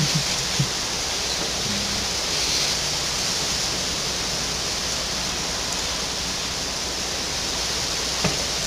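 Steady hiss of the recording's background noise, with no speech. There are a few short faint low sounds right at the start and one near the end.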